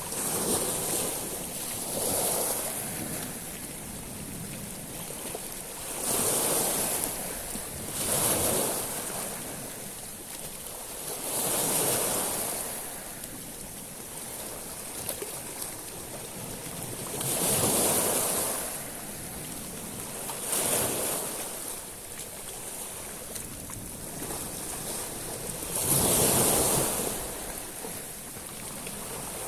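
Sea waves washing up a shingle beach of small stones, each surge breaking with a hissing wash over the pebbles. Several surges follow every few seconds at uneven intervals, with a softer steady wash between them.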